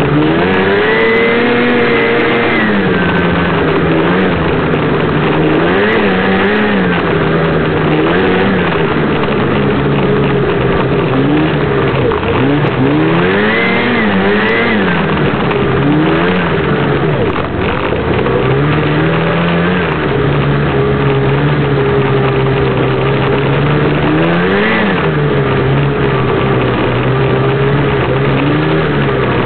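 Snowmobile engine running, its pitch rising and falling as the throttle is opened and eased several times, holding steady in between.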